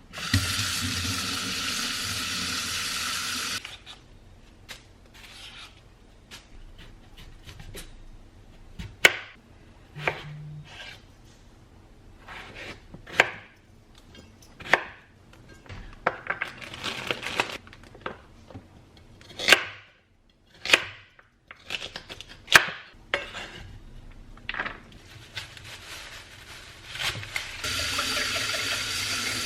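Kitchen knife cutting vegetables on a cutting board, giving scattered sharp knocks at an uneven pace. A steady rushing noise fills the first few seconds and comes back near the end.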